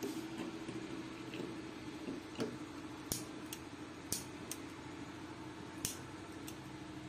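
Disposable lighter struck again and again at a biogas burner, about half a dozen sharp clicks a second or so apart, over a steady low hum. The burner is being lit as the biogas supply runs out.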